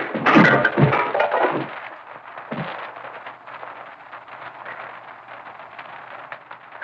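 The tail of a loud gas-oven explosion sound effect, crashing and breaking for about the first second and a half, then dying away. After that only the hiss and crackle of an old film soundtrack remain.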